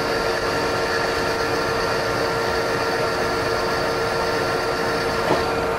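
General-purpose lathe running steadily while a drill bit bores into the end of a turning steel shaft: a steady whine of several tones over rough machine noise, with a brief tick about five seconds in.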